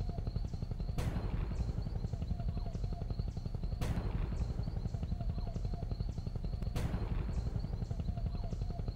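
Helicopter rotors chopping steadily, with a rushing sweep about every three seconds.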